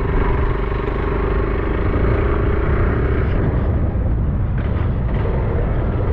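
Motorcycle running on the road: a steady engine rumble with a hum that fades out about three seconds in.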